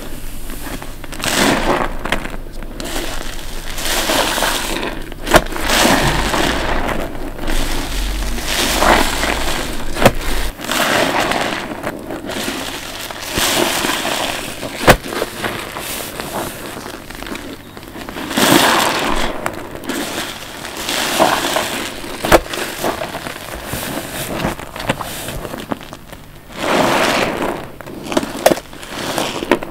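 Wet sponges soaked with soapy cleaning solution squeezed by hand over and over, each squeeze a squelching swell of a second or two, with crackles and an occasional sharp snap between them.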